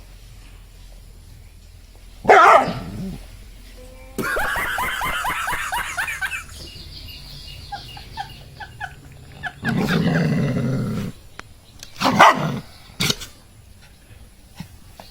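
A dog barking several times, with loud barks spaced out across the stretch and a run of fast repeated sounds partway through.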